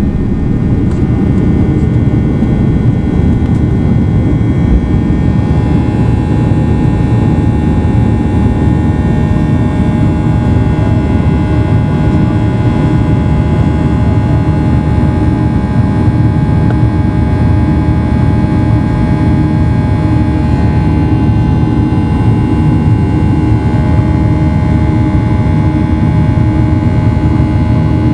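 Boeing 737-800's CFM56-7B turbofan engines at high thrust during liftoff and initial climb, heard from the cabin over the wing: a loud, steady rush of noise with several steady whining tones above it.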